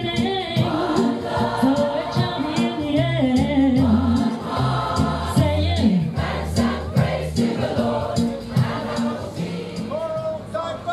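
Mixed community choir singing over an accompaniment with a bass line and light rattling percussion; the music thins out near the end as the song finishes.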